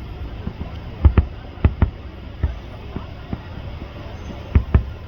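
Fireworks exploding in a series of sharp bangs with a deep low boom, several coming in quick pairs, the loudest about a second in and near the end.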